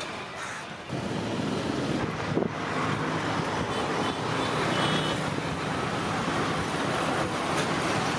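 Steady roadside traffic noise: a dense hum of vehicle engines and passing traffic, with a brief knock about two and a half seconds in.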